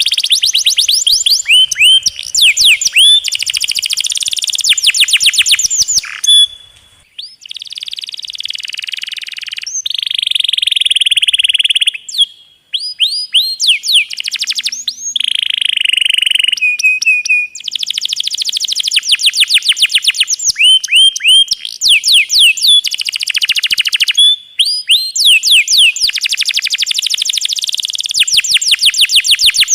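Domestic canary singing long rolling trills: fast runs of rapidly repeated downward-sweeping notes, switching between tours and broken by a few short pauses.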